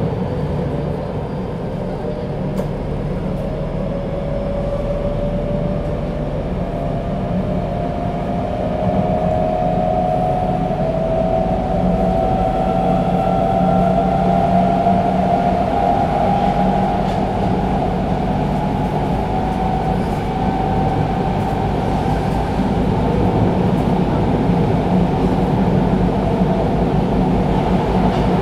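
Interior running sound of a Tokyo Metro 02 series VVVF subway car: the VVVF traction inverter and motor whine rises steadily in pitch as the train picks up speed, then holds at about one pitch for the rest. Under it runs a steady rumble of wheels on the track.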